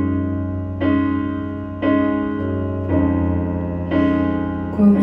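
Piano accompaniment with no singing: a chord struck about once a second, each ringing out over a held low bass note.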